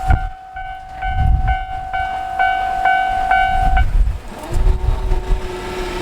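Japanese level crossing alarm bell ringing its repeating two-per-second chime over the low rumble of a passing train, then falling silent a little before four seconds in, the sign that the train has cleared the crossing. A steady hum comes in near the end.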